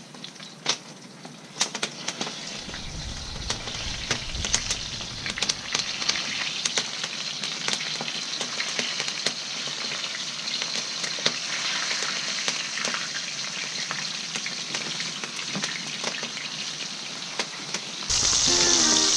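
Floured sand whiting frying in hot oil in a steel wok over a wood fire: a steady sizzle full of small crackles and pops, getting louder a couple of seconds in as the fish go into the oil. About a second before the end, music suddenly comes in.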